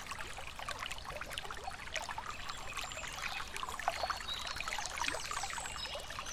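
Small forest stream trickling and splashing over stones: a steady babble of water made of many small droplet splashes. A few faint high bird notes come in briefly now and then.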